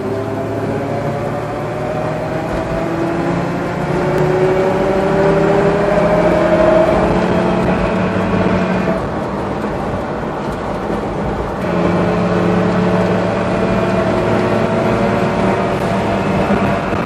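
Toyota 4Runner running, with a whining tone that rises in pitch as it picks up speed, eases off partway through, then rises again: the strange noise the owner is trying to track down.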